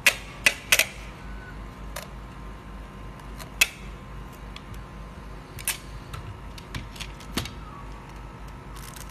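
Packing tape being pulled and cut on a handheld tape dispenser: a series of short, sharp snaps, loudest in the first second and again about three and a half seconds in, then softer ones. A steady low hum runs under them.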